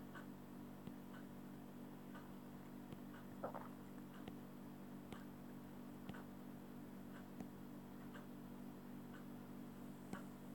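Near-quiet room tone: a low steady hum with faint ticks about once a second and one slightly louder click about three and a half seconds in.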